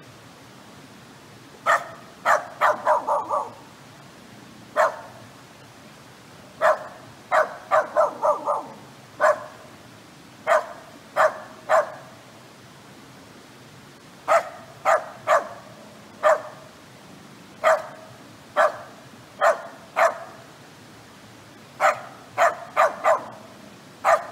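A Kai Ken dog barking over and over: short barks, some alone and some in quick runs of four or five, with pauses of one to two seconds between.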